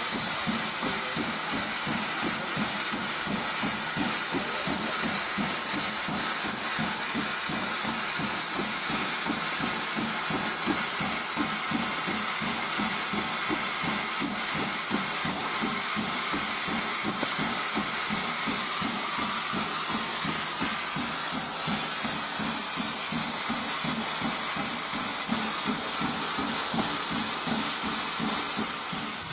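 Steam locomotive giving off a steady, unbroken hiss of escaping steam.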